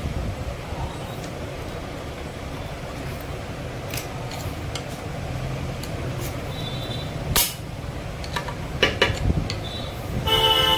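Sharp metal clicks and taps as a steel circlip is pressed and snapped into the groove of a bearing housing in an aluminium engine casing. Steady traffic hum underneath, and a vehicle horn toots briefly near the end.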